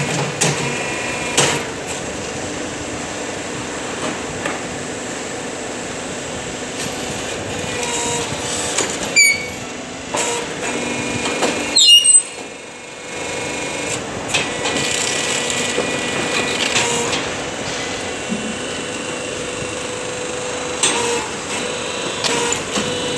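Swastik Machinery Works hydraulic concrete block making machine running: a steady hum from its hydraulic power pack, broken by occasional sharp metal clanks of the press and mould, the loudest about twelve seconds in.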